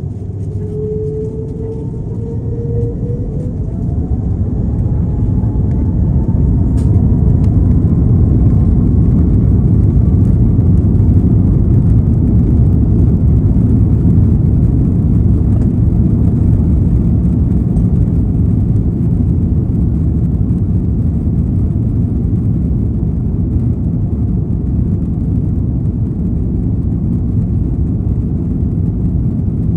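Airbus A330's jet engines spooling up to takeoff thrust, heard from inside the cabin behind the wing. A whine rises in pitch and the sound grows louder over the first several seconds, then settles into a loud, steady low rumble as the airliner rolls down the runway on its takeoff run.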